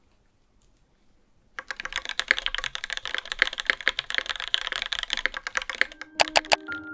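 Fast typing on a Skog Reboot mechanical keyboard with Seriko silent linear switches: a dense, quick run of keystrokes starts about a second and a half in, then a few separate sharper key clicks near the end. Piano music comes in under the last clicks.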